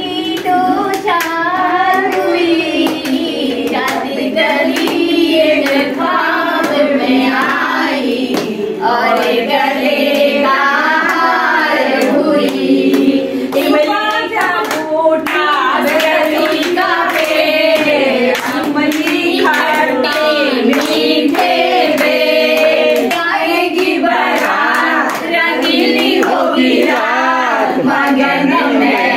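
A group of women singing a song together, with hand clapping keeping time and no instruments.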